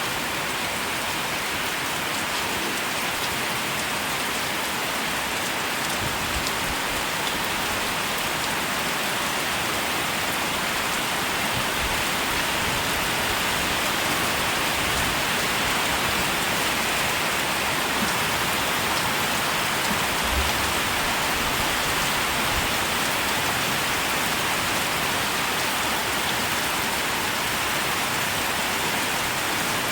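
Steady rain falling and pattering on surfaces, an even hiss that holds without a break, with a few faint low knocks now and then.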